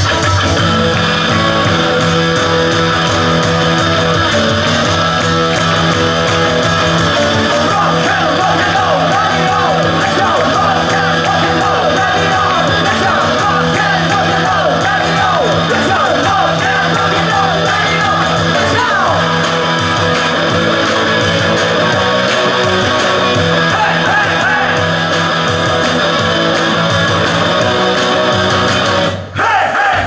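Live rock band playing loud: electric guitar, bass and drums with a man singing lead. The band stops dead for a split second near the end, then crashes back in.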